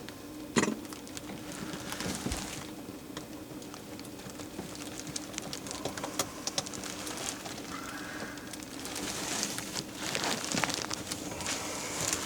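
Hand work with tools and parts: scattered clicks, scrapes and rustling, with a sharp knock about half a second in, over a steady low hum.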